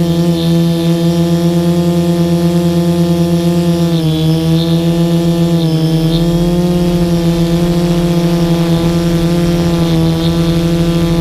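Multirotor drone's electric motors and spinning propellers, heard from the camera on the drone itself: a loud, steady whirring hum. The pitch dips briefly about four seconds in and again just before six seconds, as the motor speed changes.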